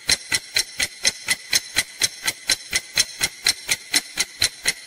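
Clock-ticking sound effect, sharp even ticks at about five a second, marking a countdown timer.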